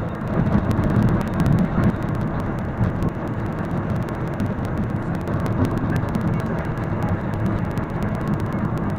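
Steady road and engine noise heard inside a moving car's cabin, strongest in the low end, with many faint high clicks scattered through it.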